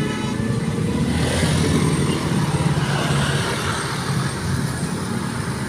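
A bus driving past with its engine running low and a rush of road noise that swells about a second in and then eases.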